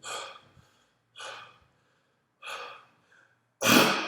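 A man gasping in short breaths about once a second, then a loud sneeze near the end, brought on by sniffing chhinkni sneezing powder. Each sound rings on with a long echo in a bare, empty room.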